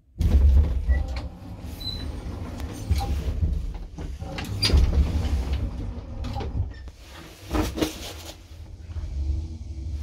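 1965 Fiam traction elevator in operation: a low rumble that starts suddenly about a quarter second in, with repeated clicks and knocks from the car and its mechanism.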